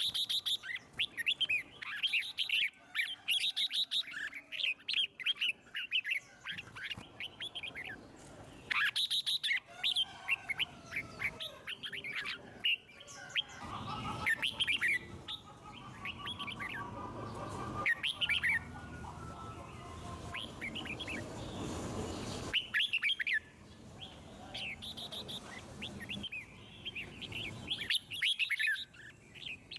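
Red-whiskered bulbuls singing, a quick run of short, bright chirping phrases repeated again and again. A low steady background noise rises under the song for several seconds in the middle.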